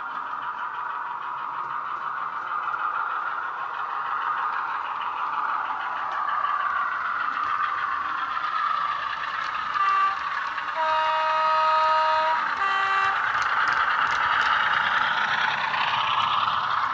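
A model locomotive's DCC sound decoder plays a Class 35 Hymek diesel-hydraulic engine sound through a small bass-enhanced speaker, getting louder as the model approaches. About two-thirds of the way in, the horn sounds a short toot, then a longer note of over a second, then another short toot.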